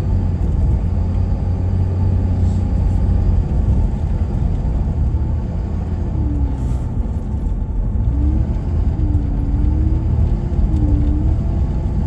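Steady low rumble of a car on the move: road and engine noise heard from inside the cabin.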